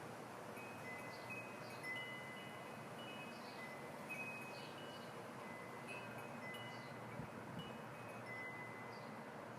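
Faint chime ringing: several held notes at a few different pitches start at irregular moments and overlap, over a steady background hiss.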